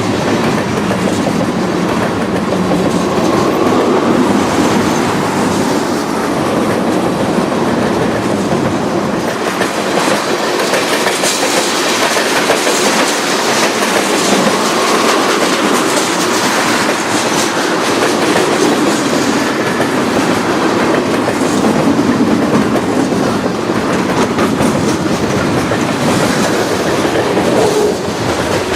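CN freight train rolling past, its wheels running steadily on the rails.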